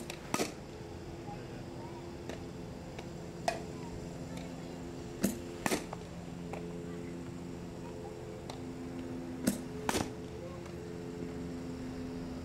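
Softball bat hitting pitched balls: three swings about five seconds apart, each a sharp crack followed by a second knock about half a second later. A steady low hum runs underneath.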